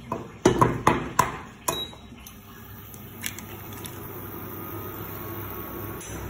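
An egg is tapped against the rim of a ceramic bowl to crack it: about five sharp knocks in the first two seconds. Quieter sounds follow as the shell is pulled apart and the egg drops into the bowl.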